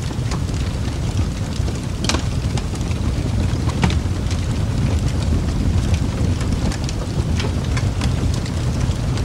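Rain and water ambience: a steady deep rumble with scattered drop-like ticks throughout.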